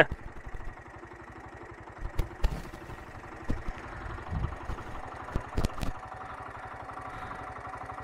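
A faint engine running steadily, with a few scattered knocks.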